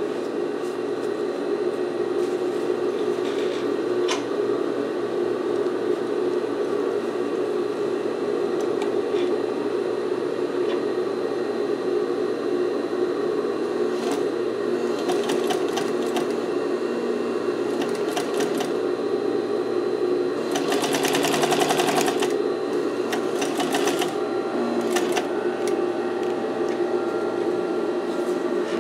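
Singer 241-12 industrial lockstitch sewing machine stitching a test seam through a vinyl strip to check the newly adjusted thread tensions. Its motor hums steadily, and several short runs of rapid needle clatter come through, the longest and loudest a little past the middle.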